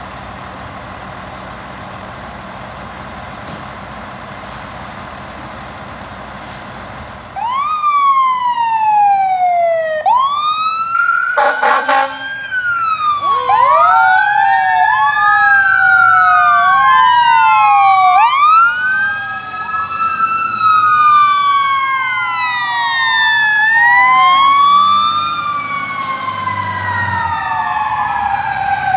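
Fire apparatus sirens from a Ferrara aerial ladder truck and an American LaFrance pumper. Two or more electronic sirens wail and sweep up and down, overlapping one another, starting about seven seconds in over the steady running of the trucks' engines. A short horn blast comes about four seconds after the sirens start.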